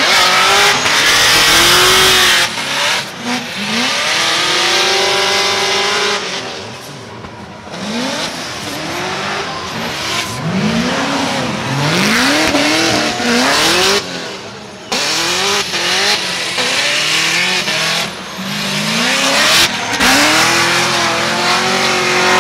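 Drift cars sliding through a corner: engines revved hard, pitch climbing and falling again and again as the drivers work the throttle, over the hiss and screech of tires spinning and sliding.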